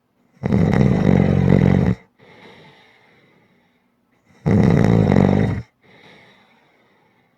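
A person snoring: two loud, low snores about four seconds apart, each followed by a softer breath out.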